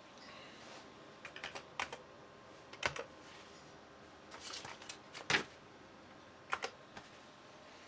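Keys being pressed on an old beige PC keyboard: a few short clicks in small clusters, the loudest about five seconds in.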